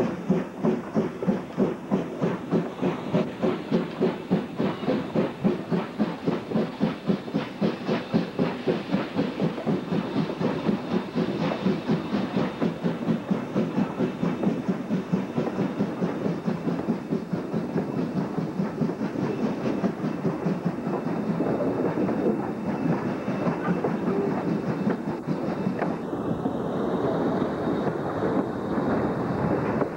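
Willamette geared steam locomotive working, its exhaust chuffing in a steady rapid beat of about two to three a second. The beats grow denser and run together in the second half.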